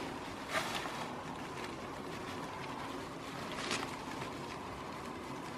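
Goats browsing on leafy cut branches, making a couple of brief leaf rustles over a steady outdoor background hiss.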